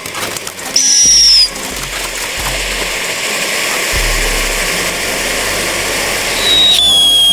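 Firework fountain battery spraying with a steady hiss, broken by two whistling shrieks: a short high one about a second in, and a longer one near the end that drops a step in pitch.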